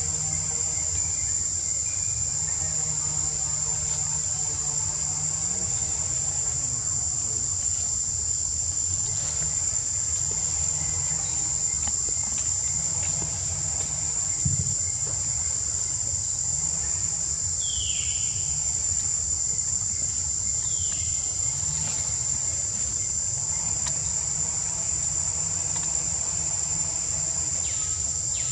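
A steady, high-pitched insect drone, with faint low voices in the background and two short falling calls about two thirds of the way through.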